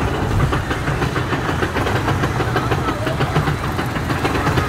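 Dahlonega Mine Train roller coaster train being pulled up a chain lift hill: a steady rumble of the running lift chain with a rapid, even clacking, about five or six clacks a second, from the anti-rollback ratchet.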